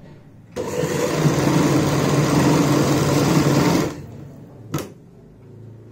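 Sewing machine running steadily for about three seconds as it stitches a seam through fabric and buckram, then stopping, followed by a single short click.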